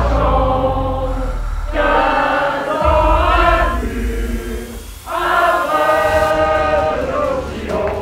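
A group of women singing together in chorus, in phrases of long held notes with short breaks about two and five seconds in.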